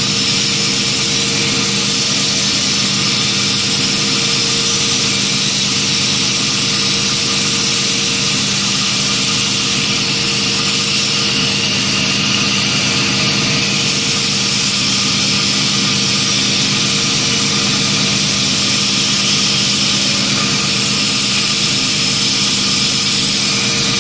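CNC wood copy lathe running steadily: a constant motor hum under an even high hiss.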